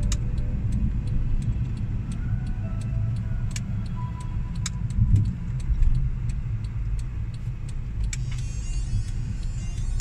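Steady low rumble of a car's engine and tyres heard from inside the cabin while driving, with a faint regular ticking over it.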